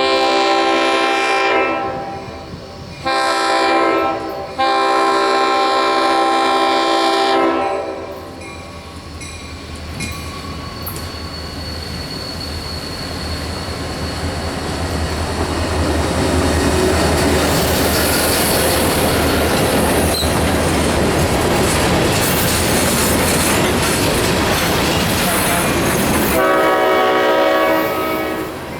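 Leslie S5T five-chime horn on an EMD GP40 diesel locomotive sounding three blasts: a long one, a short one and a longer one. The locomotive and its freight train then roll past with a heavy rumble of engine and wheels. The horn sounds again near the end.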